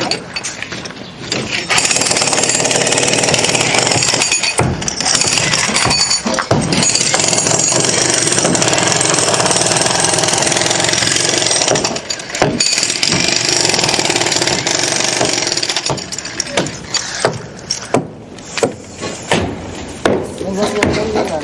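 Jackhammer running in a long continuous burst, stopping briefly, then running again. Near the end it gives way to scattered separate knocks.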